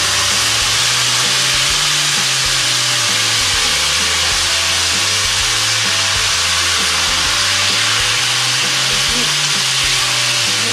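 Boiled, wet taro (arbi) leaves frying in hot oil in a kadhai: a loud, steady sizzle from the water hitting the hot oil.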